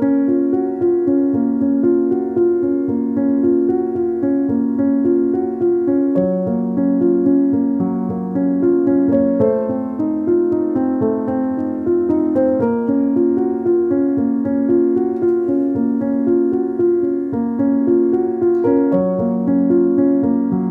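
Background music played on a keyboard instrument: a gentle run of notes over held chords that change every second or so, at a steady level.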